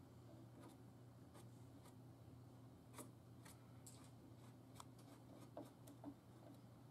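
Faint, scattered clicks and scrapes of a small hand tool working black epoxy into a crack in a plastic car spoiler, over a low steady hum.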